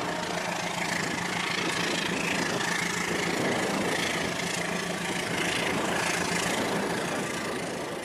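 Toy trains' small electric motors whirring with their wheels rattling over plastic track as they pass close by, a steady mechanical clatter.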